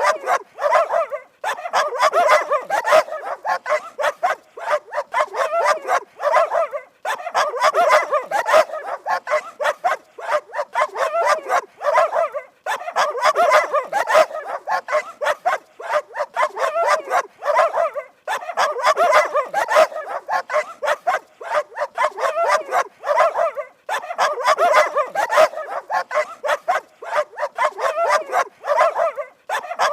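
Dog barking rapidly and repeatedly, in runs of several seconds broken by short pauses about every five seconds.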